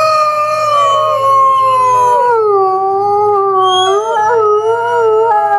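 A wolf howling: one long howl that slowly falls in pitch and wavers near the end.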